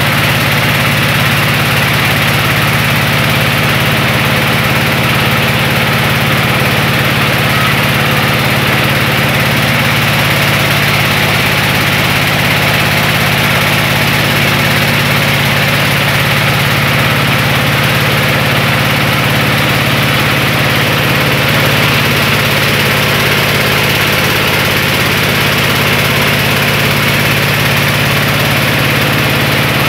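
Engine-driven rice huller of a mobile street rice mill running steadily at constant speed, a loud even machine hum with grain-milling noise and no change in pitch.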